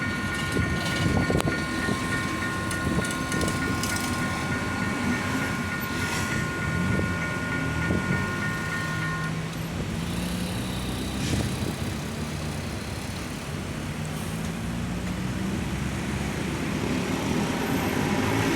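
Passing train with wheels clicking over the rail joints, under the steady tone of the crossing's AUTOTROL electronic warning bell, which cuts off about nine seconds in. A road vehicle's engine hum comes up in the second half.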